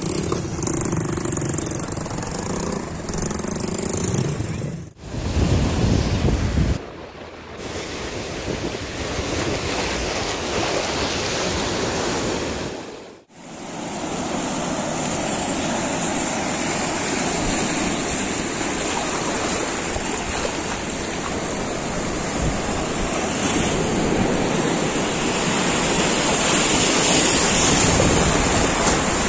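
Sea waves breaking and washing over a rocky shore, a steady rushing noise. It drops out abruptly and starts again twice, about five seconds in and again about thirteen seconds in.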